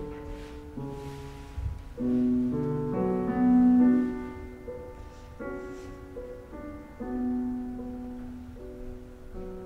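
Slow piano music, held chords changing every second or so, loudest a few seconds in.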